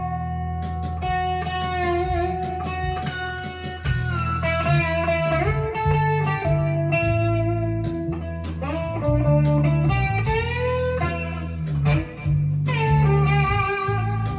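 Jackson Dinky JS22 electric guitar played through a Fender Mustang LT25 amp on its '60s Fuzz' setting: a fuzzy single-note lead line with held notes and string bends.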